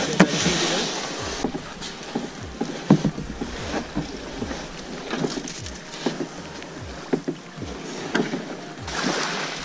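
Irregular knocks, bumps and scrapes on a beached sea kayak's hull and deck as a paddler climbs into the front cockpit, over a steady hiss of wind and water that swells in the first second and again near the end.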